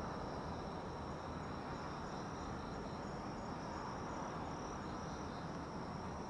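Night insects trilling steadily in two high, even pitches, over a low, even background noise.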